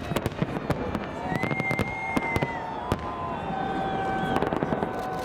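Fireworks salute going off, a rapid, irregular stream of sharp bangs and crackles. A few long, steady tones, each held for a second or two, sound over the bangs.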